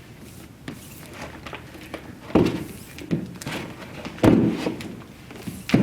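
Hardcover books being set down into a cardboard-box bookshelf: three dull thunks, the loudest about four seconds in.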